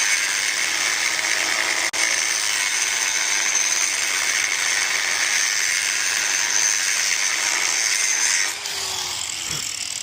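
Handheld power grinder grinding into a cracked motorcycle frame, opening out a hairline crack before it is welded. It runs steadily with a high whine, then is switched off about a second and a half before the end and spins down with a falling tone.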